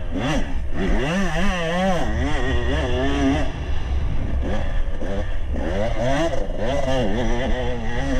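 Enduro dirt bike engine revving up and down as the rider works the throttle along a rutted dirt track, its pitch wavering quickly between short rises and falls. A low wind rumble sits under it on the helmet-mounted microphone.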